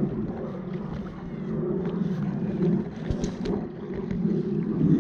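Wind buffeting the microphone over water lapping around a wading angler, with a few sharp clicks about three seconds in.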